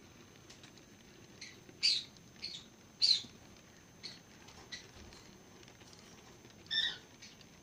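Model railway coaches rolling round a curve of track: a low steady rumble with irregular sharp clicks, the loudest about two and three seconds in, and a short squeak near the end.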